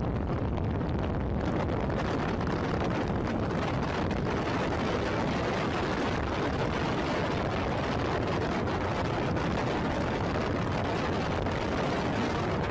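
Steady rush of wind and road noise from a car driving with a side window open, the wind buffeting the microphone.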